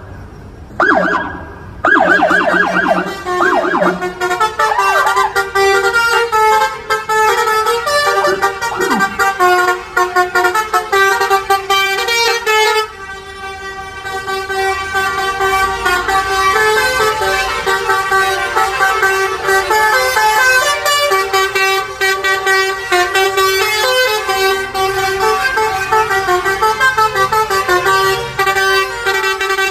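A bus's multi-tone 'telolet' air horn playing a fast melody of stepping, overlapping notes almost without pause, dipping briefly about thirteen seconds in.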